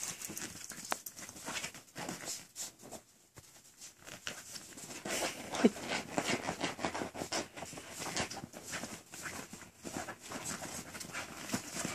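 Miniature schnauzer puppies playing, their paws and claws scuffling and pattering in quick, irregular clicks, with a short squeak about halfway through.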